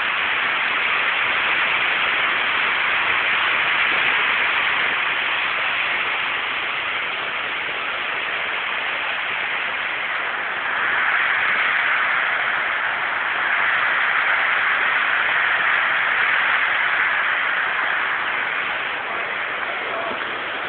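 Floodwater rushing through the sluice gates of a river barrage: a steady, loud rush of turbulent water that swells a little in the second half.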